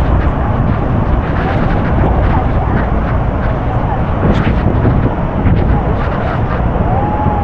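Loud, steady roar of falling water and spray at Niagara's Horseshoe Falls, with wind buffeting the microphone and faint voices of passengers on the boat.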